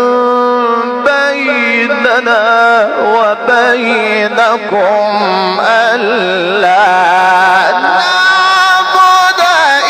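Male Quran reciter chanting in the ornamented mujawwad style, drawing out a syllable into long melismatic runs of held and wavering notes.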